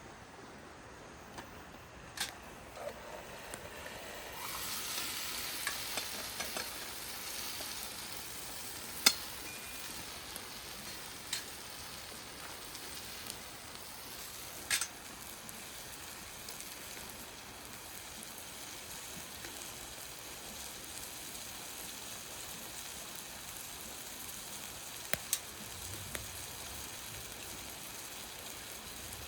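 Fried rice sizzling as it is stir-fried in a frying pan over a wood stove. The hiss swells about four seconds in, and a utensil clicks sharply against the pan a handful of times, loudest about nine seconds in.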